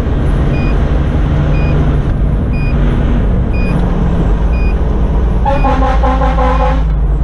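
Fire engine's Detroit Series 60 diesel running steadily under way, heard from inside the cab, with a short high electronic beep repeating about once a second. About five and a half seconds in, the truck's air horn sounds for over a second.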